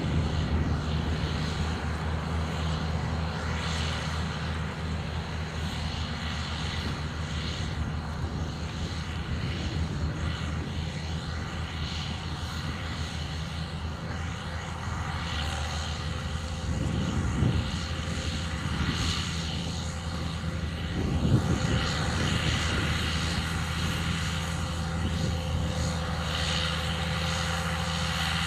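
Case IH Magnum 335 tractor's engine running steadily under load, pulling a Vaderstad Spirit seed drill through the soil. Two brief louder rough bursts come a little past the middle.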